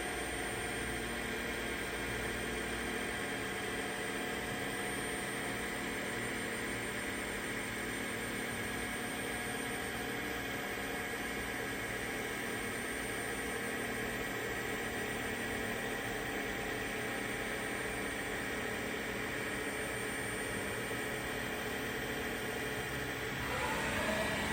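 Spindle of a 2004 Trak DPMV5 CNC bed mill running at 2000 RPM, a steady whir with several held tones. Near the end the sound shifts and grows a little louder.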